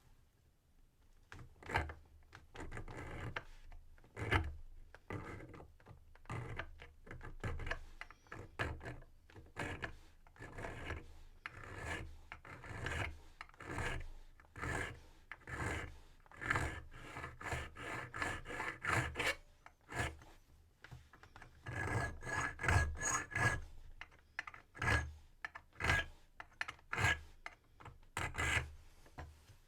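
Hand file rasping on a brass key blank in short repeated strokes, about two a second, with a brief pause near the middle. This is the filing stage of impressioning, where the marks left by the lock's wafers are filed down.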